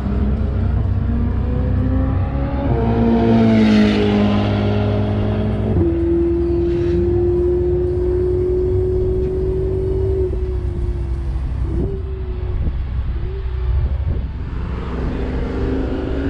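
Sports car engines on a racetrack. A car passes close by about three to four seconds in, then an engine holds a steady note for several seconds before its pitch drops, and another car approaches near the end.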